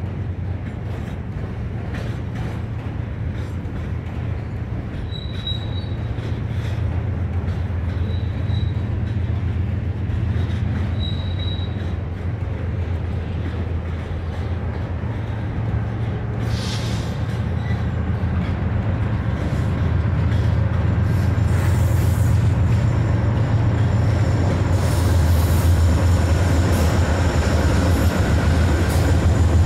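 Freight train and Norfolk Southern diesel locomotives moving through a rail yard: a steady low rumble that grows louder over the last several seconds as the locomotives come close, with wheel squeal near the end.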